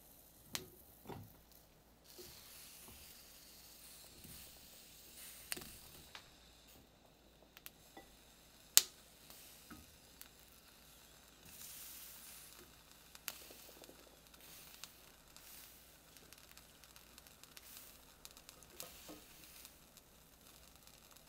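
Tomatillos, chiles and garlic cloves set down one at a time on a metal comal: scattered light knocks and taps, with one sharper knock about nine seconds in, over a faint steady hiss.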